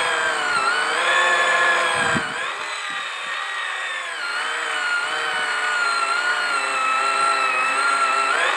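Small electric motor of a My Very Own Pottery Wheel toy pottery wheel running under pedal control, a steady whirring whine. Its pitch dips and recovers several times, the motor slowing under the load of hands pressing and centering a ball of clay on the wheel head.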